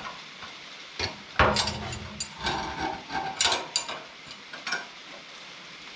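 Steel parts of a sawmill log clamp being handled and fitted: irregular metal clinks and clunks, the loudest about one and a half seconds in.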